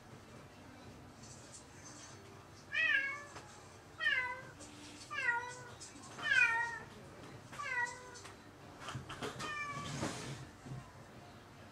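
Domestic cat meowing repeatedly, six calls about a second apart, each falling in pitch, with some rustling near the end. The cat is crying out while left alone, the lonely crying its owner links to separation anxiety.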